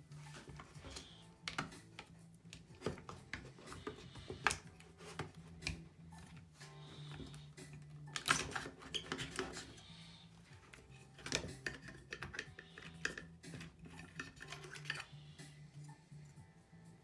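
Irregular clicks, taps and plastic clatter as a hard drive in its black plastic caddy is pried loose and lifted out of a Mac mini's aluminium case with a screwdriver. Quiet background music plays underneath.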